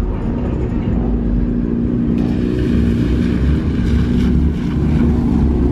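Car engine running steadily at idle.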